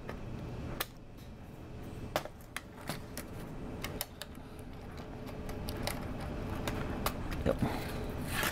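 Irregular small plastic clicks and scrapes as a tool pries at the floppy drive's ribbon-cable connector latch on an AST Ascentia J laptop motherboard, with the board being handled.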